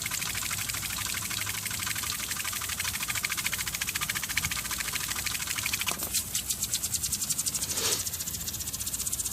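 Rotating hydro-jetting nozzle spinning and spraying water on about 60 psi of plain water pressure, without the jetter running. It makes a steady hiss with a fast, even pulsing from the spinning jets. The sound shifts about six seconds in and swells briefly near eight seconds.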